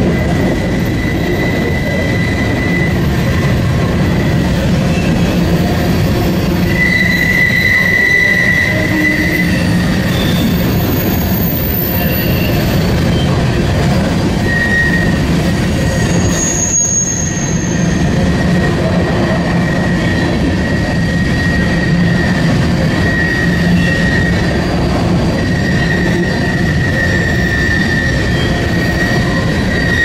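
Covered hopper cars of a freight grain train rolling past close by: a steady rumble of steel wheels on rail, with high-pitched wheel squeal coming and going.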